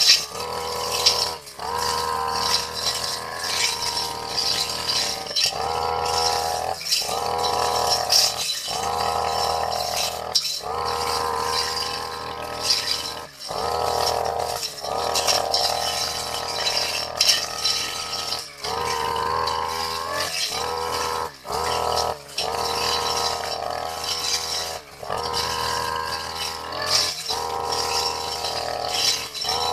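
Brush cutter with a metal blade running at high speed through long grass, its engine note steady but dipping briefly every second or two as the blade swings through the grass.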